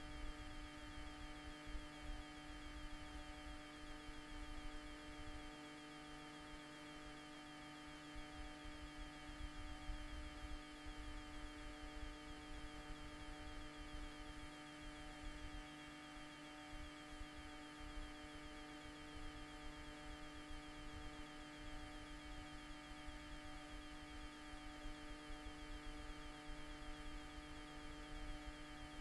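Steady electrical hum made of several constant tones, over a faint, uneven low rumble.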